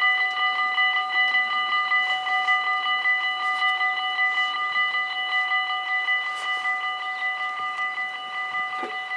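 Electric level-crossing bells of a Dutch Mini-AHOB half-barrier crossing ringing in rapid, even strikes while the barriers lower, growing slightly quieter toward the end.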